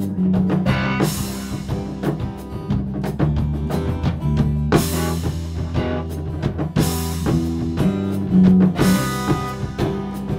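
Live band playing an instrumental passage: drum kit, electric bass and acoustic guitar, with a cymbal crash about every four seconds.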